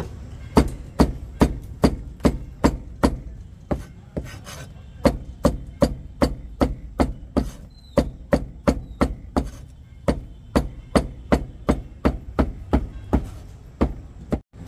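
Cleaver chopping grilled food on a plastic cutting board: a quick run of sharp knocks, about two to three a second, with brief pauses about four and ten seconds in.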